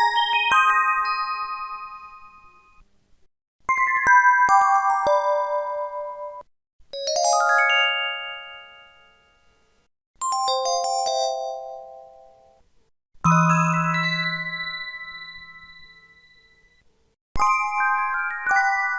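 Synthesized notification chimes from a SKY IM-7100 mobile phone's Yamaha MA-5 (YMU765) 64-poly sound chip, taken by direct line-in with no room sound: six separate short bell-like jingles, each a quick run of notes that dies away over two to three seconds before a pause. The one about halfway through has a deep low note under it.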